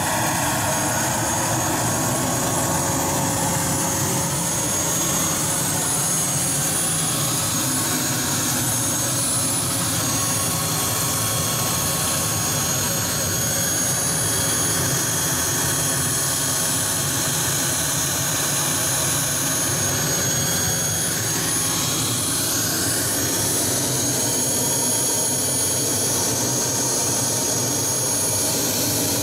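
JetCat P-180 model jet turbine in a Sebart Avanti S RC jet running steadily on the ground, a constant high-pitched whine over the jet noise.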